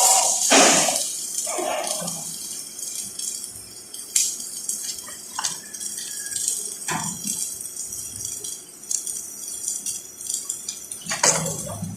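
Scattered sharp metallic clinks and knocks, a few seconds apart, over a faint steady hiss.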